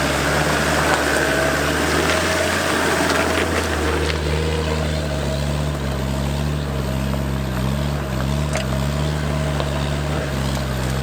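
An off-road 4x4's engine running steadily at low revs, its note wavering slightly, as the vehicle crawls along.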